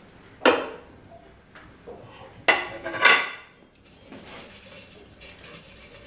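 Metal handvo maker, used as a cake mould, knocked and tapped while flour is shaken around its greased inside. There are three sharp knocks with a short ring, about half a second, two and a half and three seconds in, followed by softer rattling.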